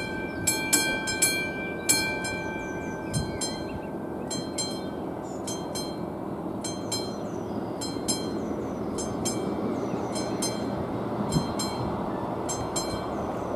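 Classic mechanical level-crossing warning bell striking about twice a second, each strike ringing on briefly, while the crossing's red lights flash. Underneath, a low rumble grows slowly louder.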